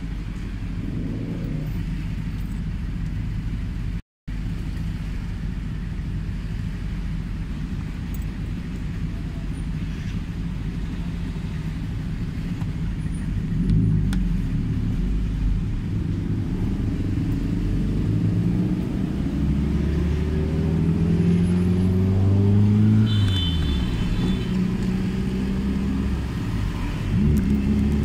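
The turbocharged 2.0-litre four-cylinder of a Toyota Celica ST205, with its exhaust freshly repaired, heard from inside the cabin. It idles steadily, then about halfway through pulls away and accelerates. The engine note rises and drops back with the gear changes.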